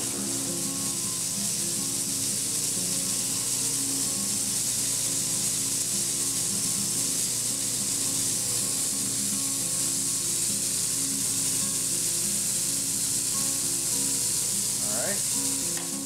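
Grizzly belt sander running, its abrasive belt hissing steadily as a pocket knife is held against it to radius and blend the bolster, with the motor humming beneath.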